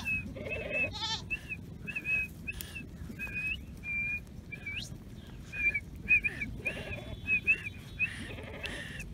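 Sheep bleating in a grazing flock, over a string of short, high chirping whistles, about two a second.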